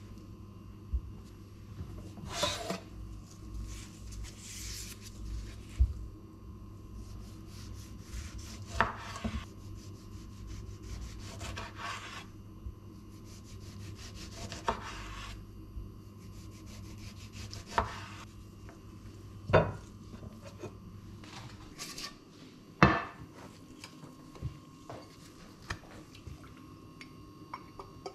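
Kitchen knife slicing a tomato on a bamboo cutting board: short scraping strokes and knocks of the blade and board, with a few sharp clatters of dishes and utensils. A low steady hum stops about three quarters of the way through.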